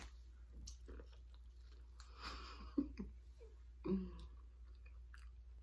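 Quiet chewing and mouth sounds of a person eating, with a few soft clicks and a brief breathy hiss a little over two seconds in.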